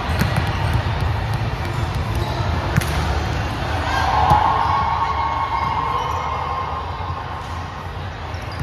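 Indoor volleyball play in a large echoing hall: sharp smacks of the ball being hit, with players' voices, loudest about four seconds in, over a steady low hall rumble.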